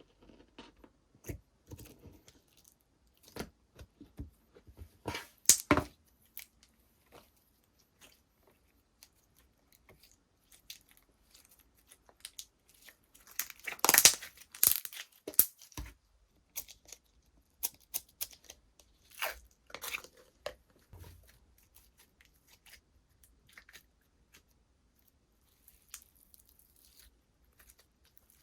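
Hands playing with slime: scattered sticky clicks, pops and tearing crackles as it is pressed and stretched. A dense run of louder crackling comes about halfway through.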